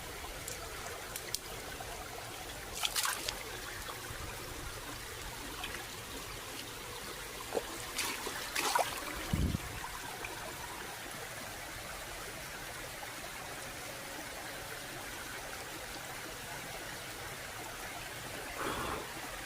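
Water trickling steadily over rocks in a small stream. A few sharp knocks come about 3 seconds in and again around 8 to 9 seconds, with a low thump just after.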